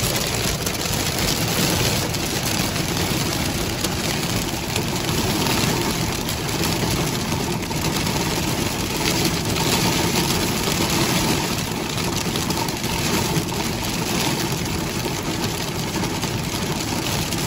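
Heavy rain pelting the car's roof and windows, a steady dense patter heard from inside the car over the engine and road noise.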